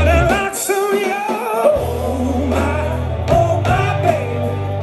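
Rock band playing live: a male lead vocal wails a wavering line over electric guitar, bass and drums. The low bass drops out for about a second and then comes back in.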